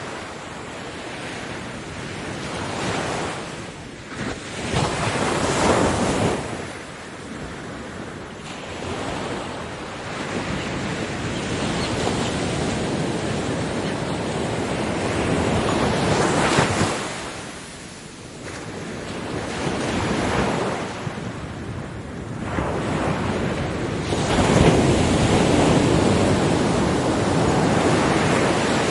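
Ocean waves breaking on a beach and washing up the shore. The wash rises and falls in swells every few seconds, the longest and loudest near the end.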